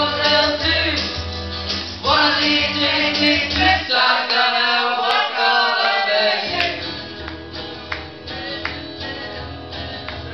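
A woman singing karaoke into a microphone, amplified over a backing track. The backing's bass drops out for a couple of seconds midway, then comes back.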